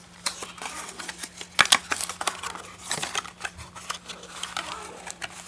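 Clicks, taps and rustling of a smartwatch's retail box and packaging being handled as the charger is taken out: irregular sharp clicks, the loudest two close together about one and a half seconds in.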